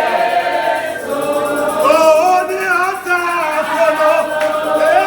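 A church congregation singing a worship song together, several voices in chorus.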